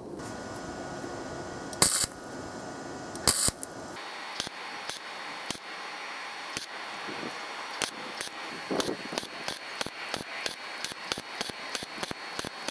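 Hammer work on sheet steel: two sharp strikes, then a run of quick, light metallic taps that come faster toward the end.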